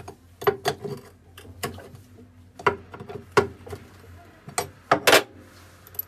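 Metal hand tool clicking and knocking against the screws in the drum hub of a top-loading pulsator washing machine as they are undone: a string of irregular metallic clicks, the loudest a quick double knock about five seconds in.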